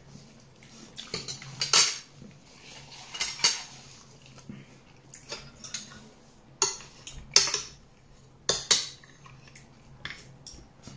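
Metal fork and spoon clinking and scraping against a glass baking dish and plates, in a string of sharp, irregular clinks.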